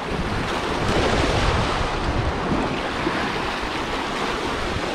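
Sea surf breaking along a rocky shore, mixed with wind buffeting the microphone: a steady rushing noise that swells slightly about a second in.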